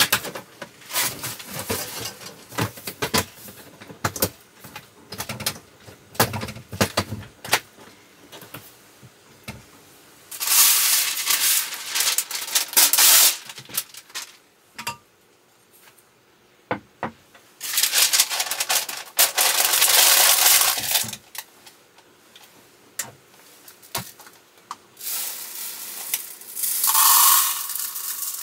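Many light clicks and knocks, then three rustling, hissing noises of about three seconds each, starting about ten, eighteen and twenty-five seconds in.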